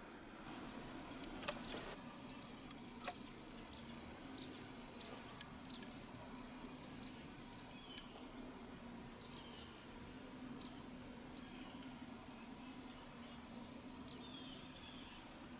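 Small birds chirping here and there in short, high, falling notes, over a faint steady low hum.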